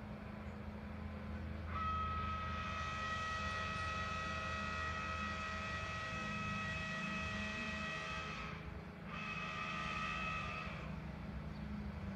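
Train horn sounding two blasts, a long one of about seven seconds and then a short one after a brief break, its several steady pitches held together as a chord, over a steady low hum.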